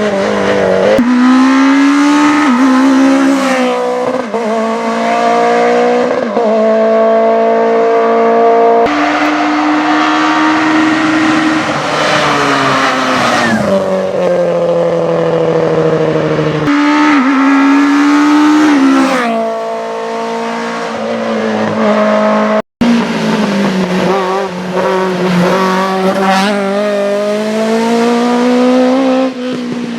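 Rally car engine running hard at high revs, its pitch repeatedly climbing and then dropping through gear changes and lifts. The sound breaks off abruptly about 9, 17 and 23 seconds in and picks up again.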